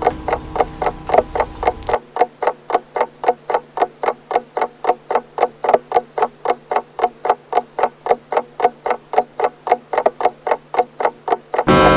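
Pendulum clock ticking evenly, about four ticks a second. A low ringing stops suddenly about two seconds in, and near the end the clock's gong strikes and rings on.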